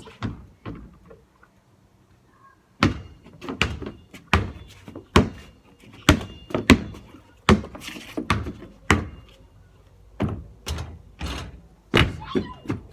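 Basketball bouncing on hard ground: a run of dull thuds, about one and a half a second and not quite even, starting about three seconds in after a short quiet gap.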